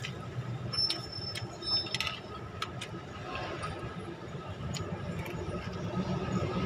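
Metal spoon clinking and scraping against a plate now and then while eating: a scatter of short, sharp clicks over a steady low background hum.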